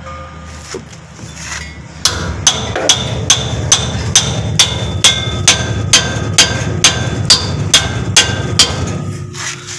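Hammer striking the rear leaf-spring shackle of a Mitsubishi L300, tapping the shackle pins into newly fitted bushings: a steady run of ringing metallic blows, about two a second, that starts about two seconds in and stops near the end.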